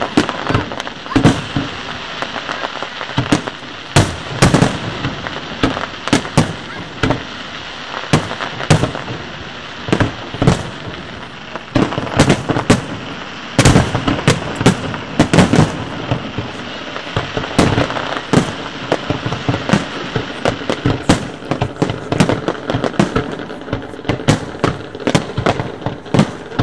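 Aerial fireworks display: a dense barrage of sharp shell bursts, several a second, over continuous crackling.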